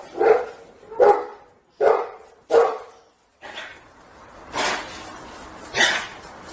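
A dog barking repeatedly, about seven barks roughly a second apart.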